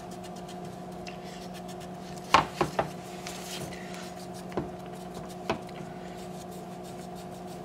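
A wooden cotton swab worked into the slots of a rifle's metal birdcage flash hider: faint rubbing with light clicks and taps, three in quick succession about two and a half seconds in and two more single ones later. A steady low hum runs underneath.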